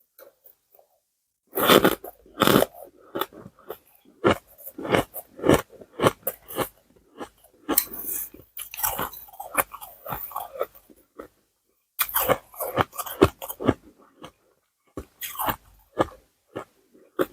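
Ice being chewed close to the microphone: irregular clusters of sharp, crisp crunches. The crunching begins about a second and a half in and stops briefly about two-thirds of the way through.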